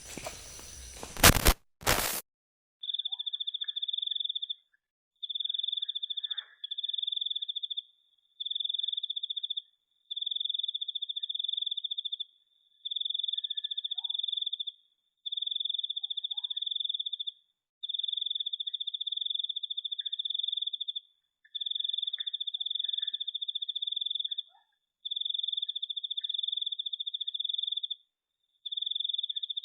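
Two sharp clicks about a second in, then a cricket trilling: a run of high, even trills of about two seconds each, separated by short pauses, with a few faint chirps underneath.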